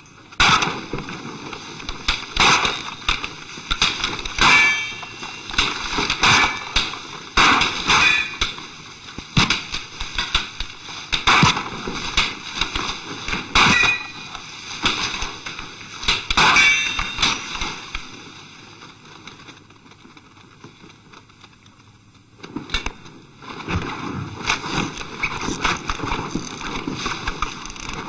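Film fight soundtrack of sharp metallic clangs and strikes coming irregularly, several with a short high ring. They die away to a quieter stretch about two-thirds through, then start again.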